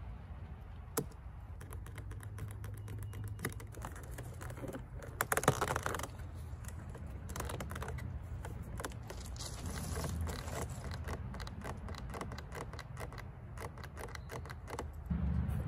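Irregular clicking and tapping of hard plastic as the HUD bezel is handled and pressed into the trimmed opening of a C5 Corvette dashboard, with a louder scraping patch about five seconds in.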